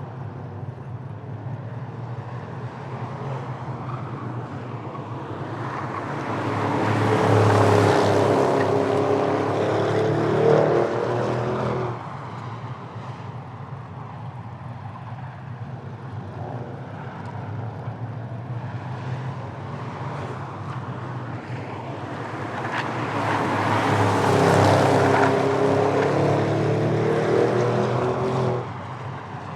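Two spectator drag cars making practice runs at full throttle, one after the other. Each engine builds up loud, its pitch falling as it goes by, and cuts off suddenly: the first about twelve seconds in, the second near the end.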